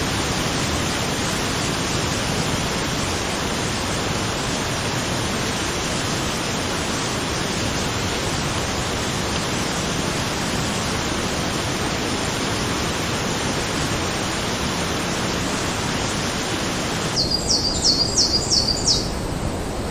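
Steady rain hiss. Near the end the rain thins abruptly and a bird gives a quick run of about six high, sharp calls.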